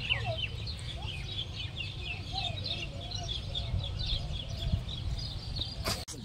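Many small birds chirping continuously, short high chirps overlapping one another, over a steady low background rumble; a few sharp clicks near the end.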